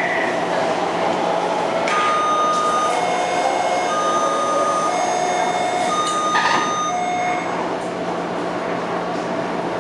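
Taipei Metro C321 train stopped at a station: the door warning chime beeps in two alternating tones, about one per second, for some five seconds, with knocks near its start and just before its end as the sliding doors move. A steady hum from the car runs underneath.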